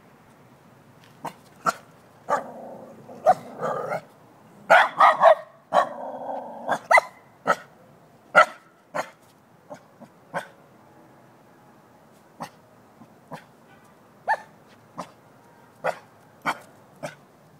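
Shiba Inu barking in short, sharp barks mixed with stretches of growling. The barks come loudest and closest together about five seconds in, then thin out to single barks a second or two apart.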